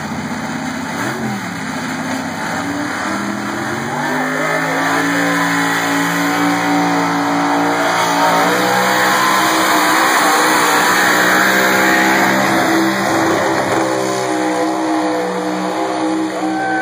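Modified stock pulling truck's engine running at full throttle under load while it pulls the sled, its pitch climbing about four seconds in and then held high and steady.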